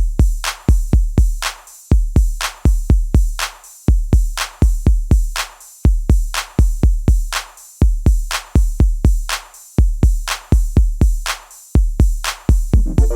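Background music: a drum-machine beat of deep kick drums with sharp attacks, repeating the same pattern about every two seconds, with no melody over it.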